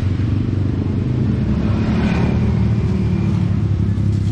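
An engine running steadily close by, a constant low hum with no change in speed.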